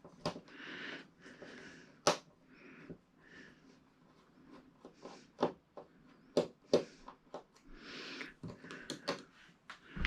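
Hands working on small parts: scattered sharp clicks and taps, with soft scraping or rustling between them.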